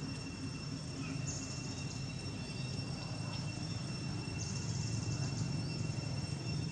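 Outdoor ambience of insects: a steady high drone with high buzzing bursts that come and go every few seconds, over a steady low rumble.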